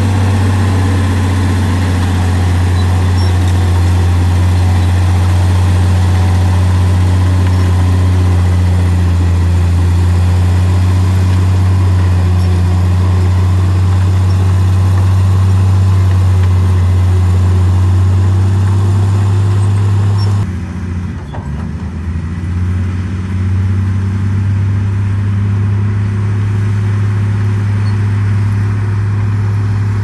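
Komatsu D58E crawler bulldozer's diesel engine running steadily under load as the dozer pushes dirt, a deep, even hum. About two-thirds of the way through the sound suddenly turns duller and the engine pitch briefly dips and wavers before settling again.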